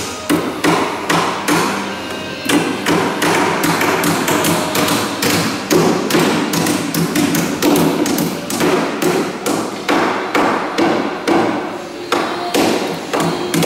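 Hammers striking timber and nails in an uneven run of sharp knocks, about two a second, several blows often landing close together: carpenters building a wooden boat.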